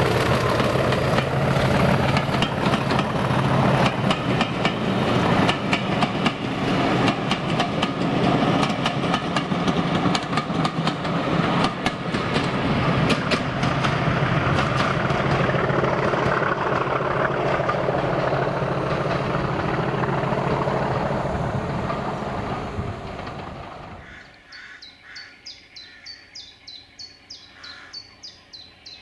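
Class 40 diesel locomotive 40106 heading away with a train of coaches, its English Electric engine note fading while the coaches' wheels clatter over the rail joints. The train dies away about 24 seconds in, leaving a bird singing in rapid, repeated high chirps.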